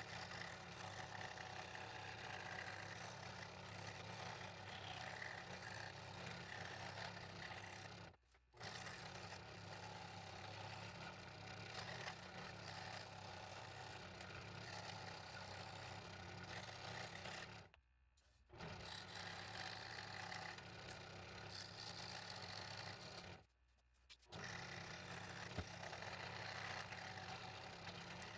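Scroll saw running and cutting wood: a steady motor hum with the scraping chatter of the reciprocating blade. The sound cuts out abruptly three times, for under a second each.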